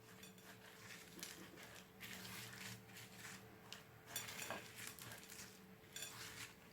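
Faint sticky crackles and clicks of glitter slime being mixed and worked, with a few light clinks.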